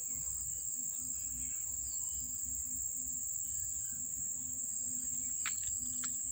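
Steady, high-pitched drone of an insect chorus, with a low rumble beneath and a couple of faint clicks near the end.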